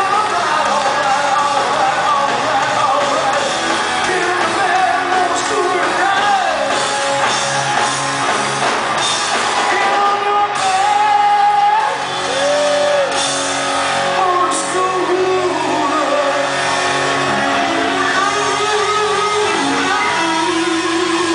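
Live rock band playing loudly, with sung vocals and electric guitar.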